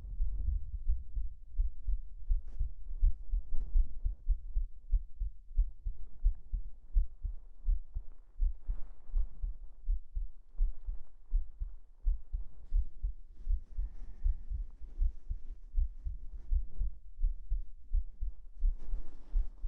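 Human heartbeat heard close up, a steady run of low thumps, with soft fabric rustling over it.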